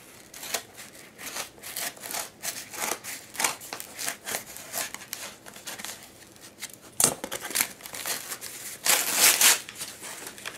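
Scissors cutting through a cardboard mailer in a series of short, uneven snips and crunches. Near the end comes a longer tearing rasp as the cut flap is pulled open.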